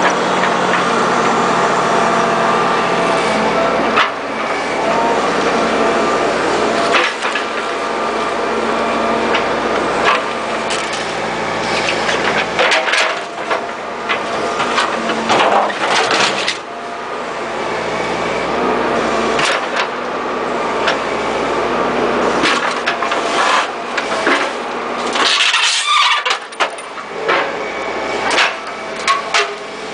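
Cat 225 excavator's diesel engine running steadily under hydraulic load while its bucket works a car tire off its steel rim, with scattered knocks and cracks of the bucket against the tire, rim and wooden planks, most of them near the end.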